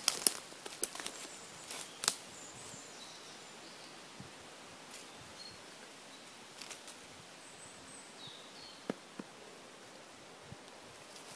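Footsteps crunching through dry leaf litter and twigs, with a cluster of sharp crunches and cracks in the first two seconds. After that comes a quiet woodland background with a few faint bird chirps, and two twig snaps about nine seconds in.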